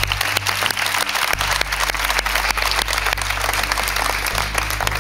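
Studio audience clapping over background music with a steady low bass line.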